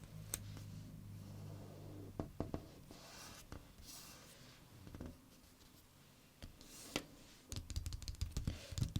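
Close-up paper sounds from a sticker book: a sticker being peeled and pressed down, with fingers rubbing and smoothing the page and scattered soft clicks. Near the end comes a quick run of light taps on the paper.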